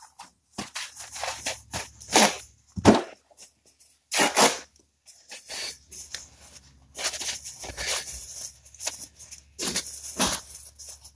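Close handling noises of a small plastic servo case being turned in the fingers: irregular rustling and rubbing, with a few short, sharp scrapes.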